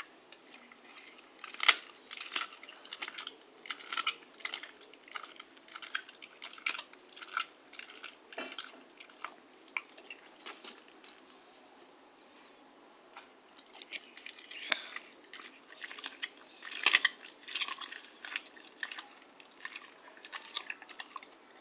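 English Bull Terrier chewing and crunching chicken legs in quick, irregular crunches. They stop for a couple of seconds about halfway through, then start again.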